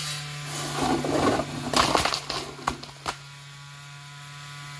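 A load of slate stones sliding and clattering out of a tipped wheelbarrow: a crunching rattle for about two seconds, then a few sharp knocks as the last pieces land. A steady low hum runs underneath.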